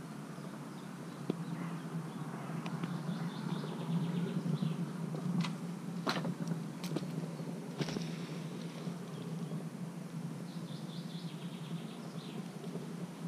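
Footsteps and a few sharp snaps of dry reed stalks as a man gets up and walks over reed litter, most of them around the middle. Small birds chirp faintly over a steady outdoor background noise.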